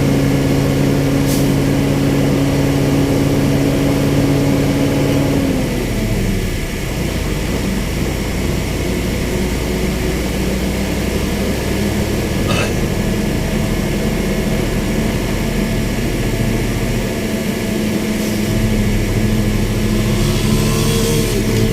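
Engine running a baler: a steady engine note that drops in pitch about five seconds in, then runs lower, with the pitch rising again near the end.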